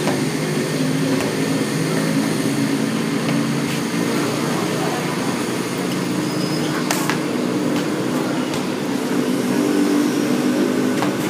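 A steady engine-like drone, with a few sharp knocks.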